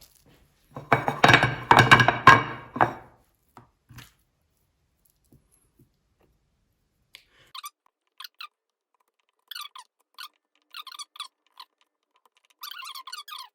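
Kitchen handling noise while flouring chicken pieces: a loud squeaky scrape of a dish on the work surface lasting about two seconds, then a couple of soft knocks and later faint light ticks.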